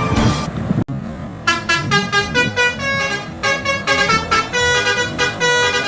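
Multi-tone 'telolet' musical bus horn playing a quick tune of short, stepped notes, starting about a second and a half in.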